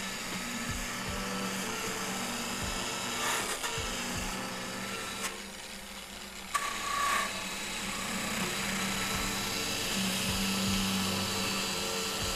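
Electric sanding tool spinning a 2-in-1 sandpaper and Scotch-Brite wheel, with the edge of a whiskey barrel stave held against it to round it smooth. The motor's steady whine runs on, the rubbing noise eases for about a second midway and comes back with a brief higher tone.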